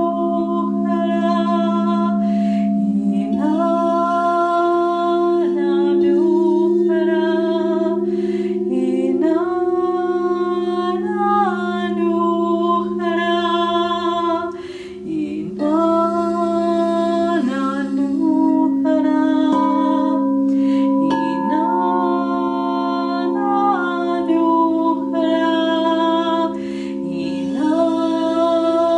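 A woman singing long held notes that step up and down, over the steady ringing hum of several quartz crystal singing bowls.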